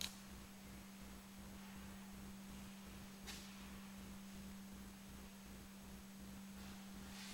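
A faint, steady low hum on one unchanging pitch over soft background noise, with a brief soft rustle about three seconds in.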